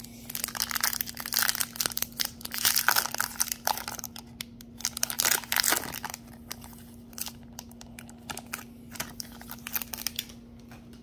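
Foil trading-card pack wrapper being torn open and crinkled in the hands, dense crackling for about six seconds, then sparser crinkles as the cards are drawn out.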